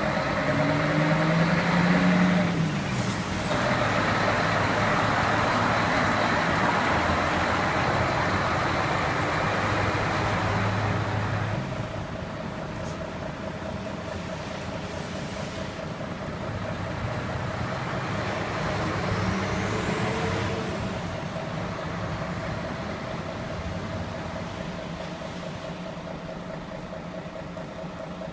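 Diesel engines of heavy concrete mixer trucks running, loud for the first eleven seconds or so, then quieter and steady with another swell about twenty seconds in. A short hiss of air brakes comes about three seconds in.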